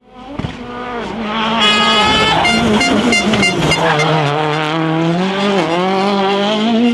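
Rally car engine at high revs on a special stage, its pitch holding, then dropping and climbing again with a gear change; the sound fades in at the start.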